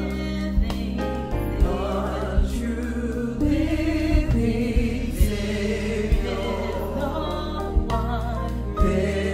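Gospel vocal group singing in harmony, backed by electric bass guitar and a drum kit.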